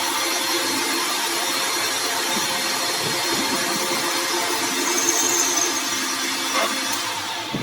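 A power tool running steadily, a continuous noisy machining sound with a steady hum under it.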